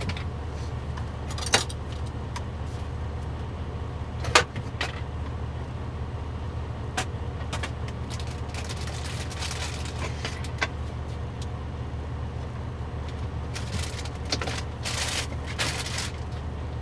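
Steady low hum of the parked semi truck's idling engine, with a sharp knock about a second and a half in and a louder one about four seconds in, and stretches of rustling and clinking as a skillet and cooking gear are taken out and handled.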